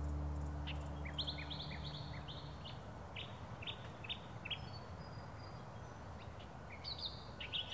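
Small songbirds chirping: a quick run of brief high calls, a pause, then a few more near the end, over a soft outdoor hiss.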